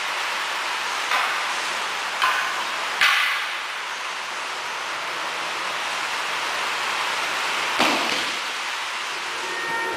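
Wooden practice swords (bokken) clacking together three times in the first few seconds, then a heavier thud of a person being thrown onto a mat near the end, over a steady hiss.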